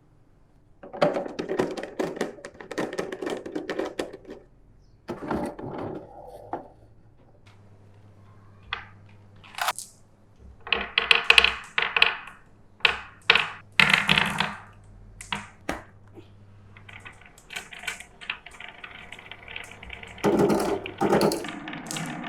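Marbles rolling and clattering down a wooden marble run, with strings of sharp clicks and knocks as they hit the track pieces. Music comes in near the end.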